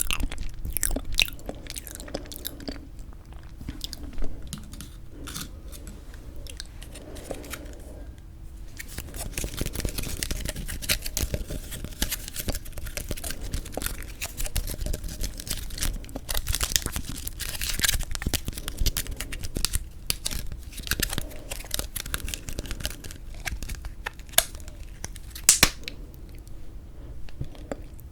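Close-miked chewing of frozen sweet red bean jelly (yanggaeng), with crackling, sticky mouth sounds and sharp clicks throughout. A few loud snaps come near the end.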